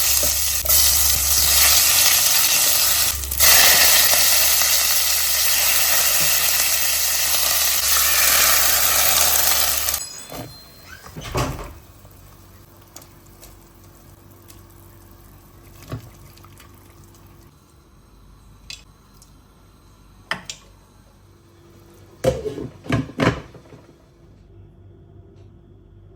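Kitchen tap water running into a sink, cut off suddenly about ten seconds in. After it come scattered light clinks and knocks of dishes and utensils, a quick cluster of them near the end.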